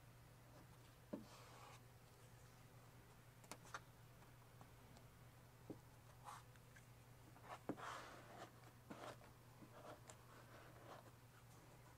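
Near silence: a faint steady hum, with a few soft, short scrapes and clicks as vinyl stripe film is pressed and tucked along a door edge with a plastic squeegee and fingertips.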